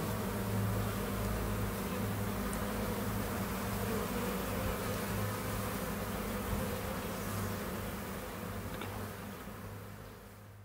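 Honeybee colony humming, a steady low drone of many bees inside a hive, fading out over the last few seconds.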